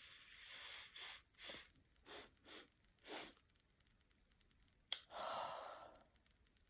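A person sniffing chhinkni, a herbal sneezing powder, up the nose: a long sniff in, then five short quick sniffs, and a small click about five seconds in followed by a longer breath.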